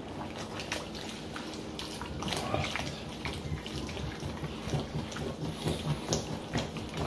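Cornstarch slurry poured from a ladle into a wok of boiling noodle soup and stirred in: liquid sloshing with frequent light clicks and scrapes of the metal ladle against the pan and noodles.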